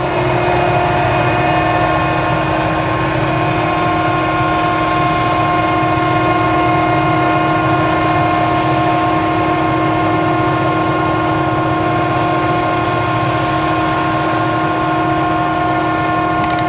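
Claas Jaguar 970 forage harvester with its V8 engine working under load while chopping sorghum, giving a steady whine of several held tones over a low rumble. An accompanying tractor pulling the forage trailer runs in the mix.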